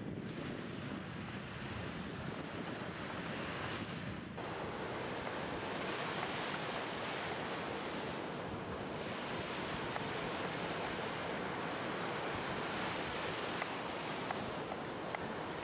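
Sea waves washing onto a sandy shore, a steady surf wash with wind buffeting the microphone. The wash gets fuller about four seconds in. A few faint knife ticks on a wooden cutting board come near the end.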